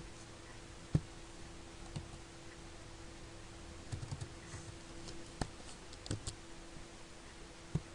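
Sparse computer keyboard keystrokes: single taps spread out, with a quick run of several about four seconds in, over a faint steady hum.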